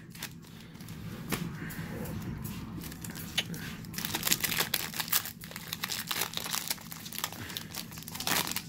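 Foil wrapper of a trading-card pack crinkling in the hands and tearing open, a dense run of sharp crackles that grows busier about four seconds in.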